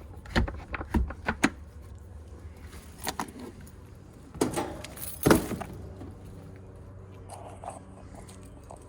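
A string of sharp knocks and rattles from objects being handled, loudest about five seconds in, then dying away over a steady low hum.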